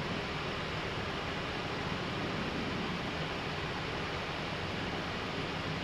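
Steady rushing hiss of an Airbus A319 flight deck in descending flight, the airflow and air-conditioning noise of the cockpit, even throughout with no distinct events.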